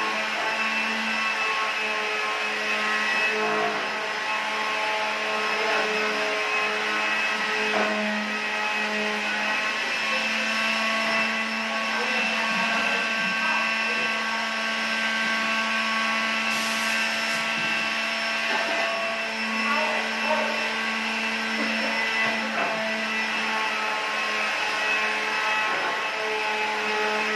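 Air compressor running steadily with a constant motor hum and hiss, supplying a pneumatic paint spray gun.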